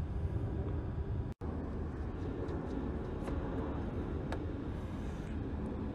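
Steady low background rumble with a few faint clicks as a battery cable clamp is handled and lifted off its post. The clamp was fitted over the plastic cap still on the post, which is why the truck would not start. The sound drops out for an instant about a second and a half in.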